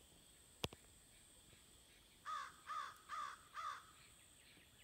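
A sharp click, then a crow cawing four times, about half a second apart.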